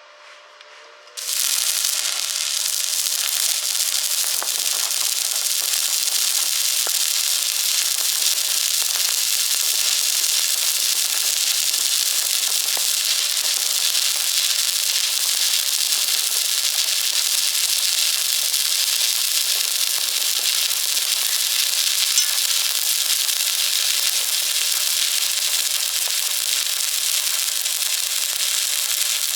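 Electric welding arc struck about a second in, then a steady crackling sizzle as the weld is laid.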